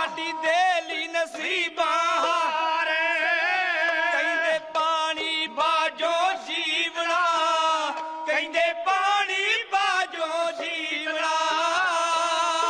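Dhadi singing: male voices in a wavering, ornamented melody, with sarangi accompaniment and occasional strokes on hand-held dhad drums.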